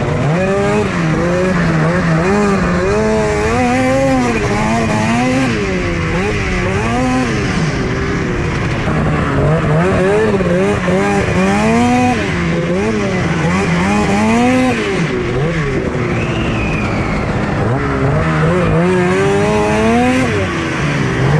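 Two-stroke snowmobile engine revving up and down again and again as the throttle is opened and backed off while riding.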